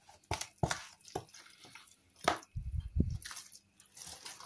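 A hand squeezing and mixing wet grated raw potato mass in a baking tin, giving a few irregular wet squelches, with a brief low rumble about three seconds in.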